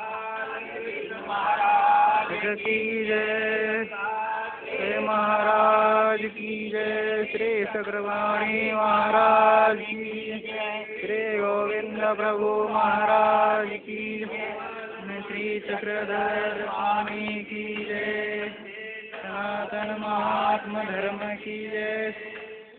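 A group of voices chanting a prayer together in rising and falling phrases, over a steady low drone.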